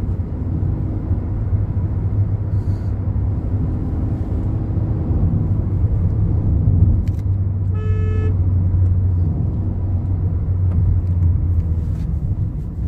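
Steady engine and road drone inside the cabin of a Hyundai Venue driving at around 80 km/h, its four-cylinder engine running under light load. About eight seconds in, a vehicle horn sounds once, briefly.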